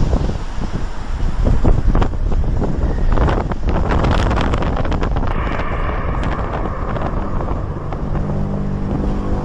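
Wind buffeting a handheld camera's microphone in gusts, with crackling pops. Near the end a low, steady drone with several stacked overtones sets in: the horn-like 'strange sound' that this beach recording is circulated for.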